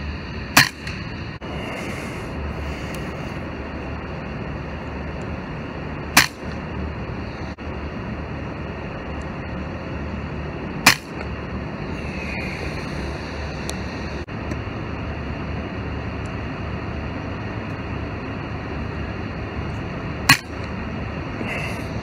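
FX Dreamline Lite .177 PCP air rifle firing four single shots, each a short sharp crack: one about half a second in, then three more spread out, the last near the end. Steady background hum.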